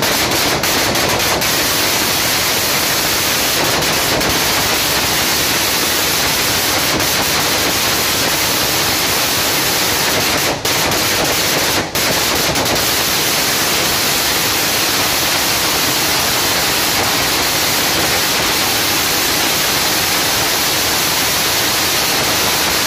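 New Year's Eve fireworks and firecrackers going off so densely that the bangs merge into one loud, continuous crackling noise, with two brief dips around the middle.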